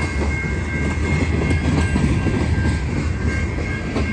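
Freight train of covered hopper cars rolling past close by: a steady rumble and clatter of steel wheels on the rails, with a steady high-pitched tone above it.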